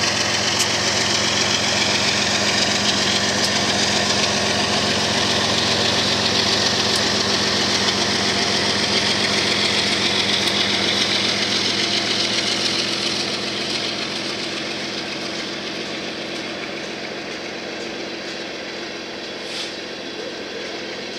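BNSF diesel freight locomotives under power as they accelerate past, a steady engine drone that fades away over the second half as the train's tank cars roll by on the rails.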